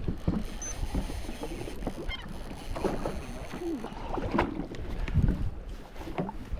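Water slapping against the jet ski's hull in irregular surges, with wind buffeting the microphone.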